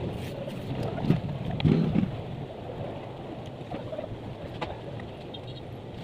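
Hands handling planed pallet-wood boards on the workbench, with a few dull wooden knocks, the clearest about a second in and just before two seconds in, over a steady low background rumble.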